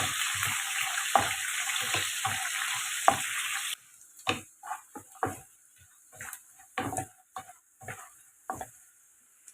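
Food sizzling in a hot pan while being stirred, with a spatula knocking and scraping against the pan over and over. About a third of the way in the sizzle cuts off abruptly, and only scattered, quieter scrapes and clinks remain.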